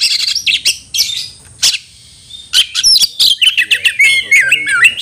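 Oriental magpie-robin singing in full song: rapid bursts of varied whistles, trills and sharp clicking notes, broken by a short pause about two seconds in, over a steady high hiss.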